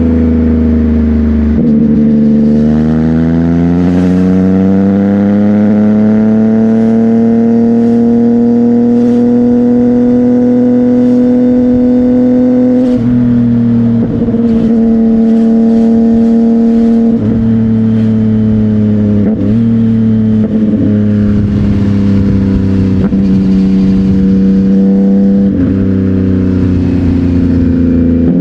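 CFMOTO 675NK's inline three-cylinder engine running through an aftermarket titanium exhaust while riding. Its pitch climbs slowly under throttle and drops suddenly four times, with a few sharp crackles in the second half.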